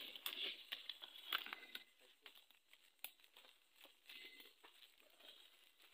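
Leaves and twigs rustling and crackling as someone pushes through dense undergrowth, busier in the first two seconds, then sparse faint crackles.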